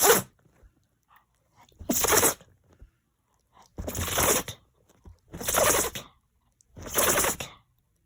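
Dog sneezing over and over in a fit: a short sharp sneeze at the start, then four more about a second and a half apart.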